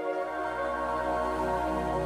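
Soft ambient music of sustained, held chords, with a low bass note coming in just after the start.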